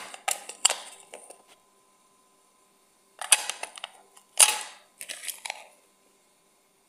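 A plastic bag crinkling and a few sharp knocks as mastic resin is crushed inside it: light crackles at first, a short lull, then three sudden bursts, the loudest about four and a half seconds in.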